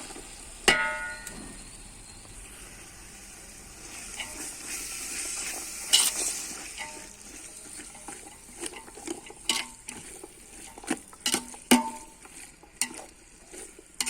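Biryani ingredients frying in a cooking pot, with a steady sizzle while a spoon stirs and knocks against the pot. One clang rings briefly near the start, and more scattered knocks follow in the second half.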